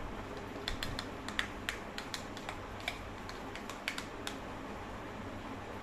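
Small metal spoon clicking and scraping against a plastic tub while scooping out mayonnaise: a quick, irregular run of light clicks from about a second in until about four seconds in.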